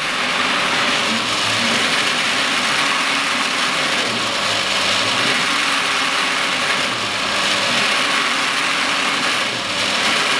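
Brewery wort pump running with a steady racket as near-boiling wort is pumped through a plate chiller: cavitation, which the brewer thinks is steam forming bubbles inside the pump housing. Cooling water rushes from the chiller's outlet hose alongside.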